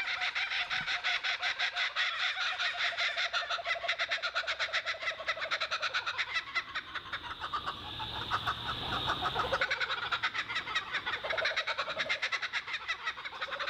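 A rapid, evenly pulsed animal call repeating several times a second without a break, with a lower tone that slides slowly down beneath it over the first half.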